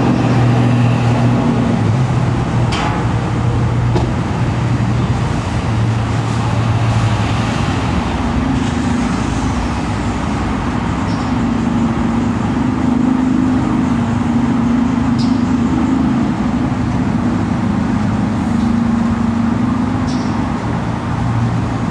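Steady road traffic noise, with the low hum of vehicle engines fading in and out.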